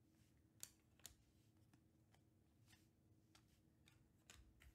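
Faint, short flicks of baseball trading cards being peeled off a stack in the hand and dropped onto piles, about one every half second, over a faint steady hum.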